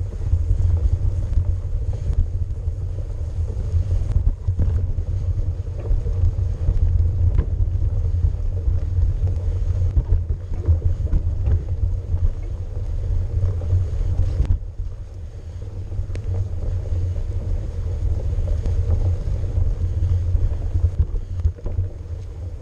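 Mountain bike riding a snow-covered dirt trail: a loud, steady low rumble of wind buffeting the microphone and trail vibration, with faint scattered clicks and knocks. It drops for a moment about two-thirds of the way in, then builds again.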